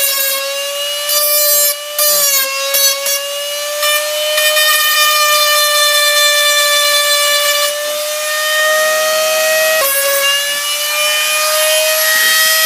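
Dremel rotary tool with a sanding bit running with a high, steady whine while grinding the rear glass off an iPhone 8. Rasping spells come as the bit bears on the glass, and the whine dips a little in pitch under the load.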